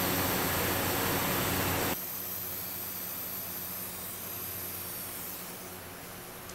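Hand-held heat tool hissing steadily with a low hum as it shrinks heat-shrink tubing over a soldered wire splice. About two seconds in, the hiss drops abruptly to a quieter level and then slowly fades.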